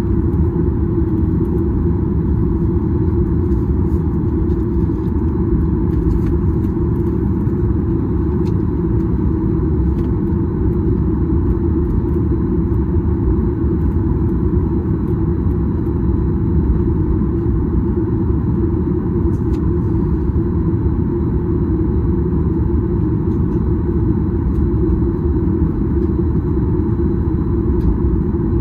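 Steady cabin rumble of a Boeing 737-800 taxiing, its CFM56 jet engines at low thrust together with the cabin air, with a faint steady high tone over the deep drone.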